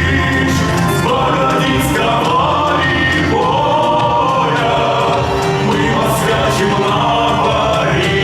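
Cossack folk ensemble singing a song in several-part choral harmony, with long held notes over a steady low bass.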